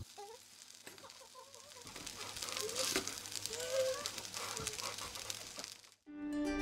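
Faint sizzling with light clinks of a fork tossing rice noodles and vegetables in a stainless steel pan. About six seconds in the sound cuts to a moment of silence, then music starts.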